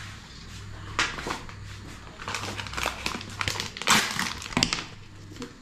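Plastic food packet, a cheese bag, crinkling and crackling in irregular bursts as it is handled, the loudest about four seconds in, over a steady low hum.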